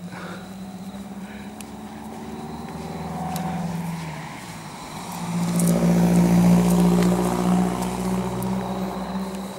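Car engines running close by: one fades away about four seconds in, then a louder one comes up and holds.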